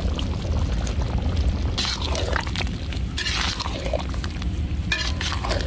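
Thick mutton gravy simmering in a large iron kadai and being stirred, with three short bursts of wet stirring about two, three and a half and five seconds in, over a steady low rumble.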